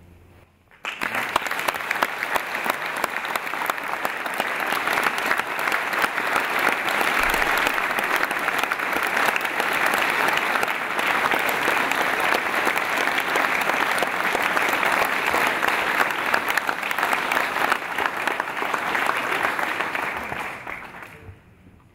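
Audience applauding: a dense, steady clapping that breaks out about a second in and dies away near the end.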